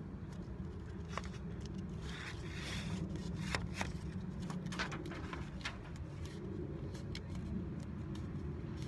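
A thin strip of construction paper crinkling and creasing in the hands as it is folded, with scattered small crackles and clicks, over a steady low background rumble.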